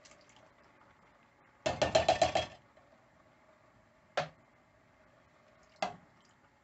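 Metal food tins knocking against a steel cooking pot as tinned tomatoes are tipped in: a quick run of about eight ringing taps about two seconds in, then two single metallic knocks later on.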